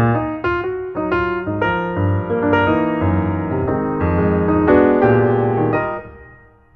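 Background piano music: a melody of single notes over sustained low chords, dying away near the end.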